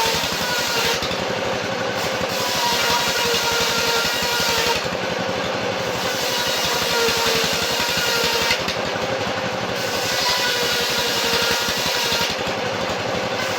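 Sawmill machinery running steadily, a motor hum with fast even pulsing, and a hiss that drops and returns about every four seconds.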